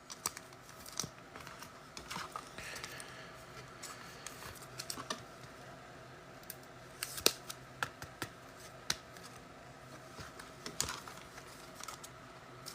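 Quiet, irregular light clicks and taps of trading cards and card packs being handled, with a few sharper snaps among them.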